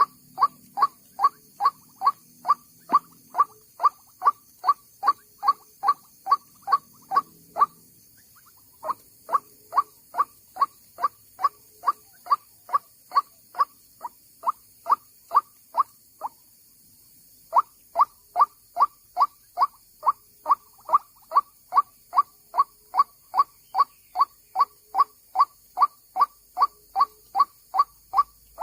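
White-breasted waterhen (dahuk) calling: a monotonous run of short, evenly spaced notes, about two and a half a second, broken by two brief pauses.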